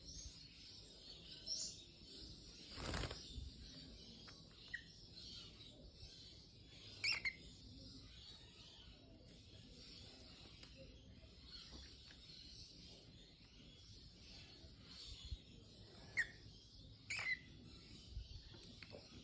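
Cockatiels giving a handful of short chirps, spaced several seconds apart, with a brief rustle of feathers about three seconds in.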